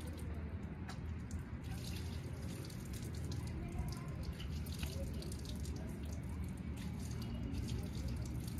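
Water poured from a small steel jug into cupped hands and splashed on the face, dripping and splattering irregularly onto concrete and into a metal bucket, over a steady low rumble.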